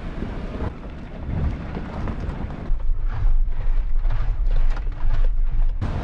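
4x4 vehicle driving over a rough desert dirt track: wind buffeting the microphone over a low rumble from the tyres and engine. About halfway through the sound turns to a deeper rumble with a string of knocks and rattles, and the wind noise returns near the end.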